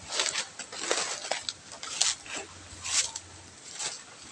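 Footsteps crunching through dry leaf litter and brushing through undergrowth, about five steps a second apart.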